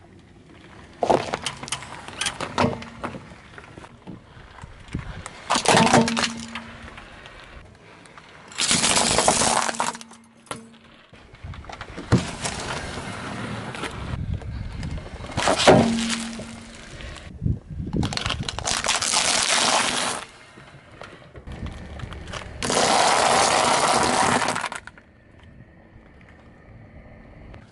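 A car tyre rolling over and crushing a series of brittle objects on asphalt, one after another: sharp cracks and snaps, some single and some running into a couple of seconds of dense crunching and crackling, with short quieter gaps between.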